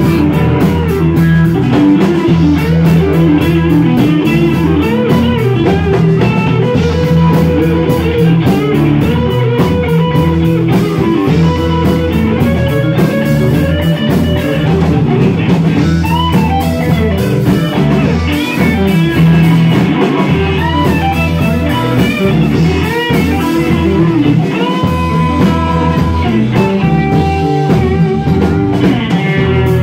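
Live blues band playing an instrumental passage: an electric guitar plays a lead line full of bent notes over bass guitar and a drum kit.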